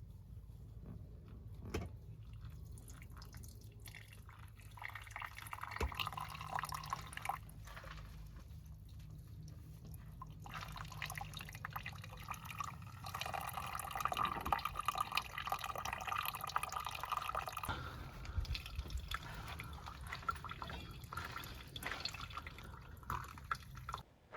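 Water bubbling and dripping, in a short stretch about five seconds in and a longer one from about ten seconds until near the end, over a low steady hum.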